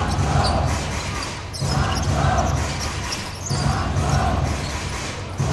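Live basketball game sound in an indoor arena: crowd noise, with the ball bouncing on the court.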